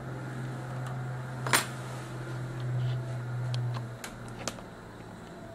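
Small sharp clicks and taps of hands handling a camcorder's circuit board and ribbon-cable connectors, the loudest about one and a half seconds in, over a steady low hum that drops off about four seconds in.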